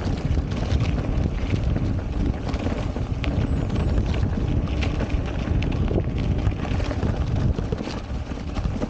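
Wind buffeting the microphone of a moving rider, with tyre rumble and frequent small rattling clicks from riding over rough, dry grassy ground.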